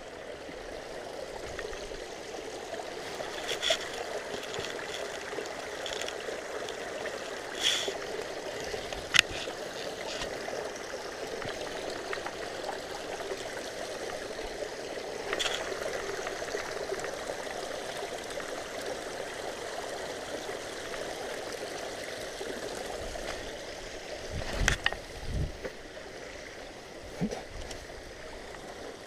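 A steady rush of running water, with a few sharp clicks scattered through it, and near the end several dull thuds of boots stamping and stepping in wet mud and grass.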